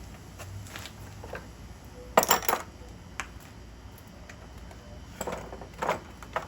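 Metal tools and engine parts clinking and clattering as they are handled and set down: a loud clatter a bit over two seconds in, another pair of clinks a little after five seconds, and light ticks between.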